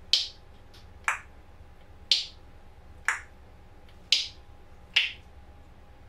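African grey parrot making six sharp clicks, about one a second, alternating between a higher and a lower pitch like a ticking clock.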